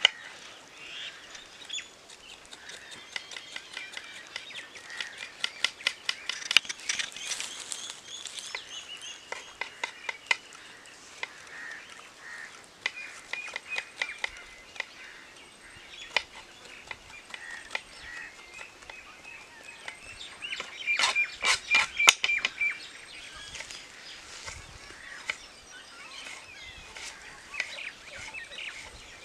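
Knife chopping on a wooden cutting board in irregular sharp taps, with a quick run of chops about two-thirds of the way in. Birds chirp and call in the background.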